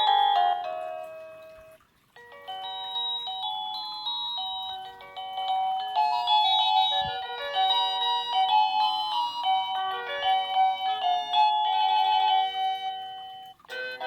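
Bestrix wireless doorbell receiver playing its electronic chime melodies one after another. One tune dies away about two seconds in, a long multi-note tune plays until near the end, and another tune starts just before the end.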